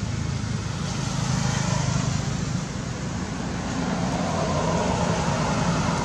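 Passing road traffic, a continuous rush of tyres and engines that swells about a second in, eases, then builds again over the last couple of seconds.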